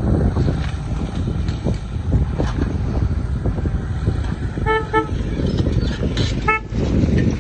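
Heavy machinery engine running with a steady low rumble, while a vehicle horn toots twice in quick succession a little past halfway and once more about a second later.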